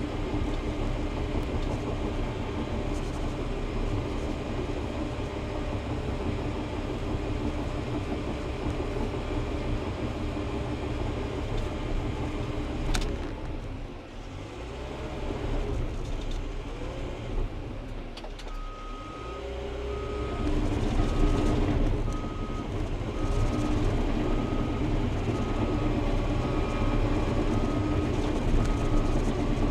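Bulldozer's diesel engine running steadily, dropping and revving back up about halfway through. From about two-thirds of the way in, a backup alarm beeps about once a second as the dozer reverses.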